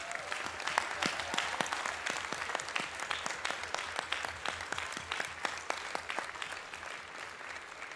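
Applause from a large audience and people on stage, a dense patter of many hands clapping that slowly dies down toward the end.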